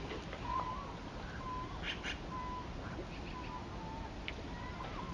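Birds calling in short, repeated notes, about one a second, over the steady rush of river water, with two brief sharper sounds about two seconds in.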